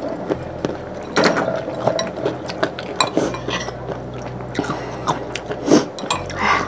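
Close-up eating sounds: a person chewing a mouthful of spicy rice noodle soup, while a metal spoon repeatedly clinks and scrapes against a ceramic bowl. A few louder mouth sounds stand out, about a second in and near the end.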